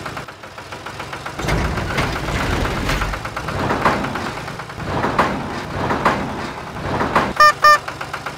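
A motor vehicle engine running, getting louder about a second and a half in, with two short high beeps near the end.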